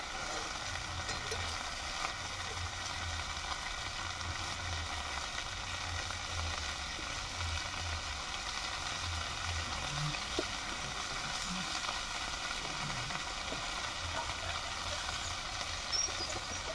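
Food frying in hot oil in a wok over a wood fire, a steady sizzle, stirred now and then with a metal spatula.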